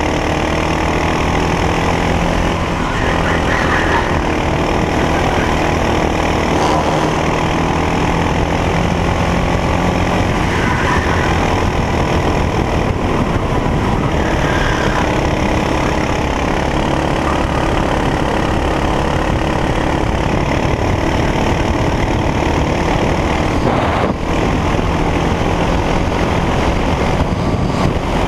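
Racing kart engine heard on board at racing speed, running hard with its pitch rising and falling as the driver works the throttle through corners and straights.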